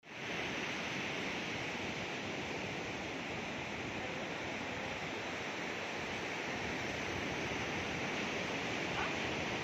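Ocean surf breaking on a beach: a steady, even hiss of waves with no break.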